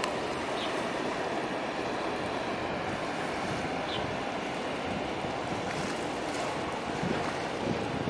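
Steady rush of wind and sea water, with wind buffeting the microphone.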